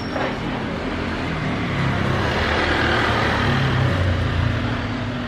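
A motor vehicle passing by: engine and road noise swelling to a peak about halfway through, then fading.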